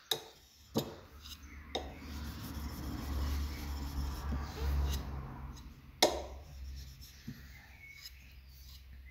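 A steel chisel rubbed back and forth on a diamond sharpening stone, with its back held flat to cut off the burr after honing. The scraping is strongest in the middle few seconds, and there are a few sharp clicks of steel on the stone.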